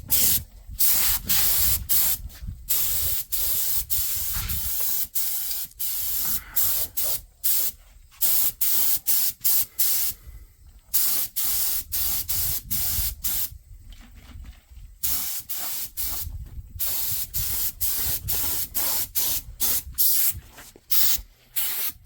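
Paint being sprayed onto a truck frame in many short hissing bursts, one after another, with brief gaps between them, over a low rumble.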